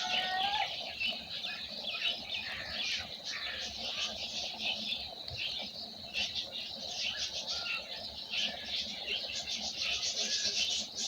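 Many small birds chirping and twittering at once in a dense, continuous chorus of short high notes. A rooster's crow trails off in the first half second.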